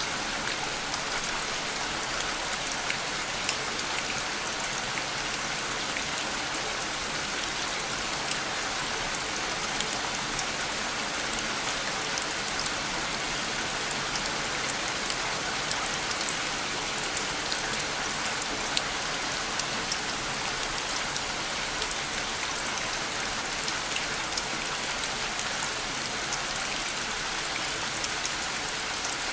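Steady, even rain falling, with many small drop ticks scattered through the hiss.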